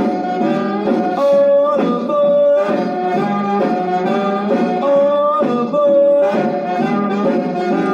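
Instrumental break of a 1957 rock and roll record played from a 78 rpm disc: a horn carries the lead line over the band, holding notes between short runs.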